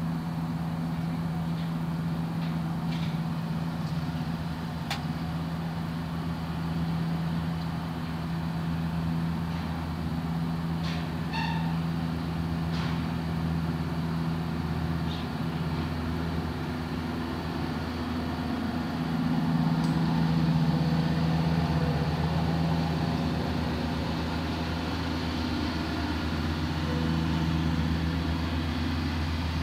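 Steady low machinery hum, a motor running at a constant pitch, with a single click about five seconds in and a brief high squeak about eleven seconds in.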